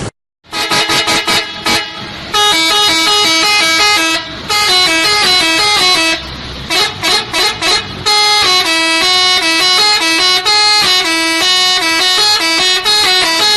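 A bus's multi-tone 'telolet' musical air horn playing a tune. It plays two runs of quick short toots between long held notes that step up and down in pitch.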